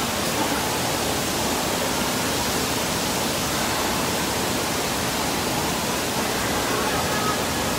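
Steady rushing of water with the echoing din of a large indoor pool hall: water-park background noise from pools and water features.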